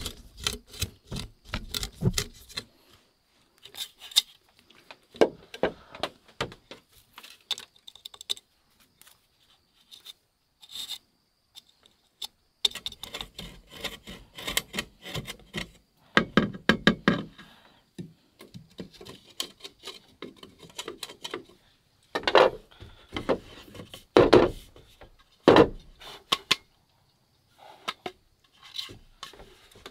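Knife point twisting and scraping into the bottom of a bamboo cup, boring small holes: irregular scratchy rasps and clicks of steel on bamboo, with louder clusters about halfway through and again near the end.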